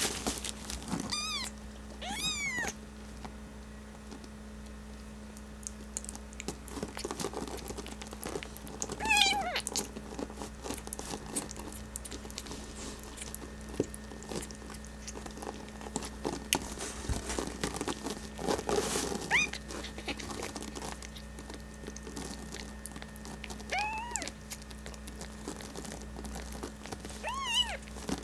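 A newborn kitten mews with short, high-pitched cries, a few at a time: twice near the start, then now and then, with one more near the end. Between the mews come the rustle and small clicks of hands handling the kitten and a feeding tube on a paper pad.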